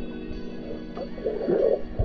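Background music of long held chords, with a short burst of underwater gurgling from the camera moving through the water near the end.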